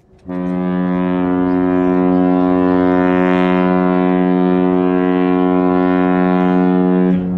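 Ship's horn sounding one long, loud, deep blast of about seven seconds, a steady tone rich in overtones that cuts off sharply near the end.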